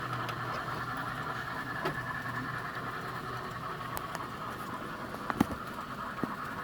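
Steady background hum with a few short clicks and knocks scattered through it.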